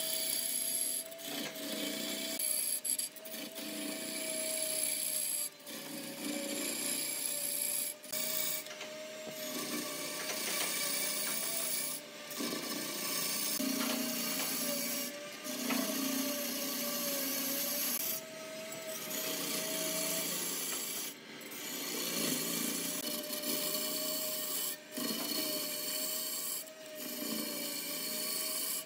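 Lathe tool cutting into a large, charred wooden log spinning on a wood lathe: a continuous rough scraping and tearing of wood as shavings peel off, with a steady hum under it. The cutting breaks off briefly every few seconds.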